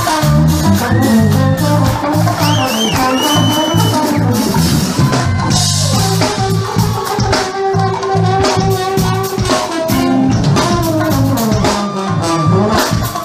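Funk band playing live, loud, with keyboards over a steady drum-kit beat.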